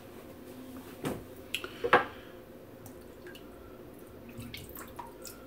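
A few short, wet clicks and taps, loudest about two seconds in, as a lather-loaded shaving brush and soap tub are handled.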